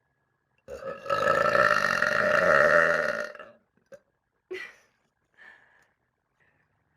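A woman's long, loud burp lasting about three seconds, followed by two short, much fainter sounds.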